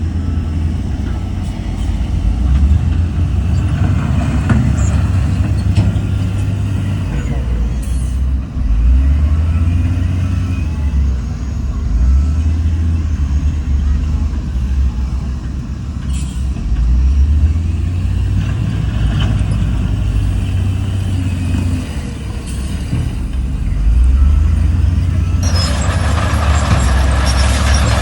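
Heavy diesel earthmoving machinery running under load, a deep engine rumble that swells and eases every few seconds. A broad rushing noise starts near the end and runs alongside the engine.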